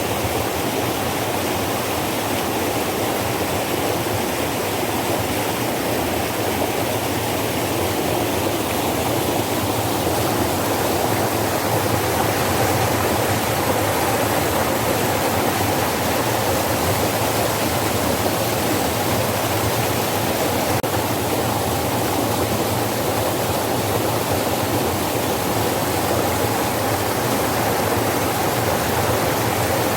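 Mountain valley stream, water rushing steadily.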